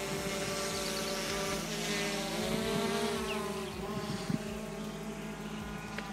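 DJI Mavic Pro quadcopter's propellers buzzing in flight, a steady whine of several tones whose pitch rises and dips about halfway through as the drone changes speed.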